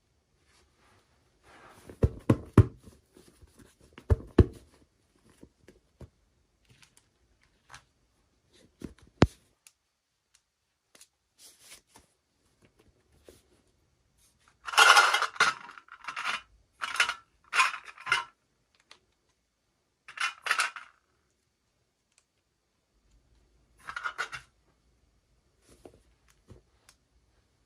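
Hands unboxing small plastic toys: scattered taps and clicks of plastic pieces, then a run of short crinkling rustles of packaging about halfway through, with a few more later.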